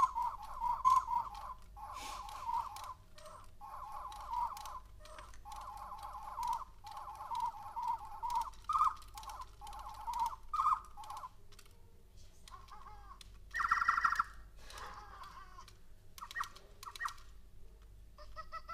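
DigiOwls electronic toy owls chirping together through their small speakers: a dense run of short, repeated, warbling bird calls for about the first ten seconds, then scattered calls, the loudest a brief burst about three-quarters of the way through.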